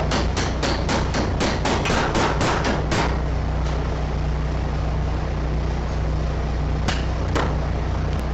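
Rapid hammering, about five blows a second for some three seconds, then two more single knocks near the end, over the steady hum of an engine running.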